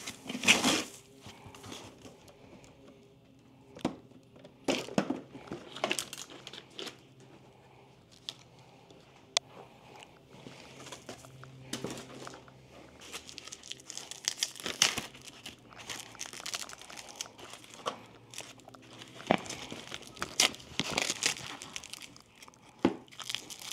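Packing material being stripped off a new bicycle by hand: plastic wrap and foam crinkling and tearing in irregular bursts, with scattered sharp clicks and light knocks.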